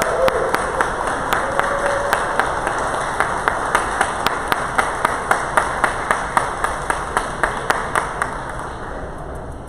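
Crowd applause, with close-by clapping in a steady beat of about three claps a second. The clapping stops near the end and the applause dies away.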